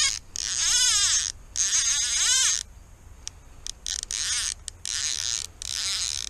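Fly reel's click-pawl ratchet buzzing in six short runs as the spool turns with a hooked carp on the line, each run rising and falling in pitch as the spool speeds up and slows.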